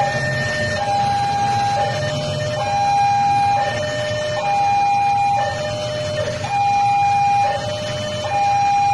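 Two-tone hi-lo siren alternating steadily between a higher and a lower pitch, each held just under a second, over a low steady rumble.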